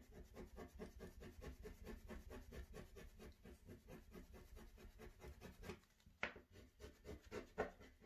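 Faint rapid scraping of a plastic protractor rubbed back and forth over a sheet of paper on a hard table, about five strokes a second, breaking off for a moment before a few heavier separate scrapes near the end.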